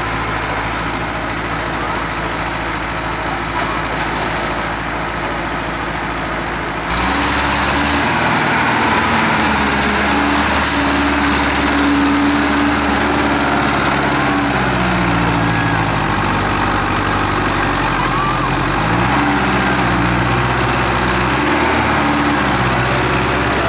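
Farm tractor diesel engine working through deep mud, its note rising and falling as the throttle changes. About seven seconds in, the sound switches abruptly to a louder, closer tractor engine that dips and climbs in pitch several times.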